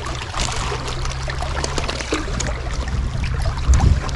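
Small waves lapping and splashing at the water's edge, with wind rumbling on the microphone and a low thump near the end.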